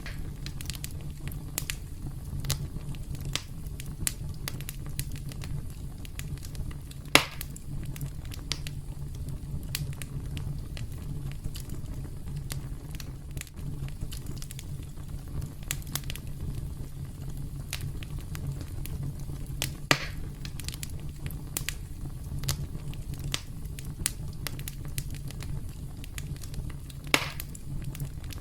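Campfire crackling: a steady low rumble of burning wood with frequent small snaps and three sharper, louder pops spread through.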